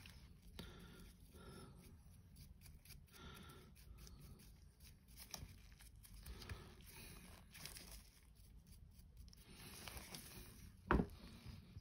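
Faint, irregular scratching of a stiff dry brush scrubbed over a painted miniature, with small handling noises from gloved hands turning the painting handle, then one sharp knock about eleven seconds in.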